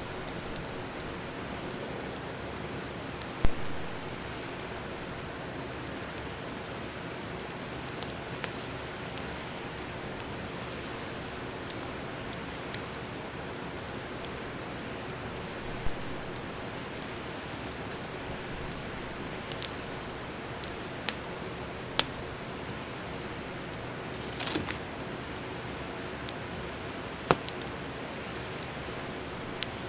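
Wood campfire burning: a steady hiss with irregular crackles and sharp pops, a few of them much louder than the rest.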